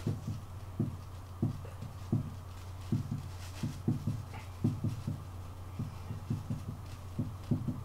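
Marker pen writing on a whiteboard: a string of short, irregular strokes and taps as characters are written.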